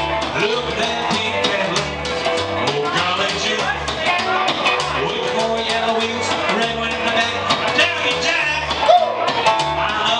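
Live rockabilly played on upright bass and an Epiphone ES-295 hollow-body electric guitar, the bass plucking a steady run of low notes under the guitar.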